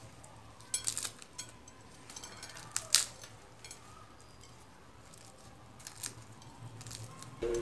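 Crisp, flaky layers of baked hand-rolled börek being pulled apart by hand: scattered crackles and rustles as the pastry shatters, with a few sharper cracks about a second in and near three seconds.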